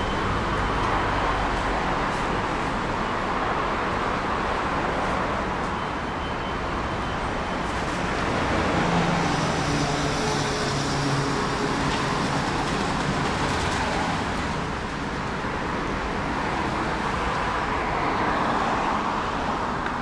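Steady road traffic noise from passing vehicles. About halfway through, a heavier vehicle's engine hum rises and fades.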